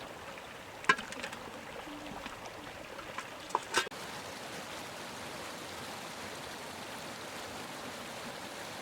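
Steady rushing noise with a few sharp knocks, one about a second in and a couple more just before the four-second mark.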